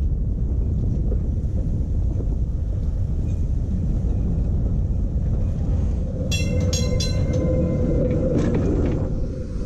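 A Toronto CLRV streetcar approaching and rounding a curve close by, with a steady low rumble. About six seconds in come three quick, sharp ringing strikes, and then a steady whine holds as the car swings past.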